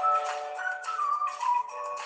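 Background music: a melody line stepping up and down between short notes over steady held lower notes.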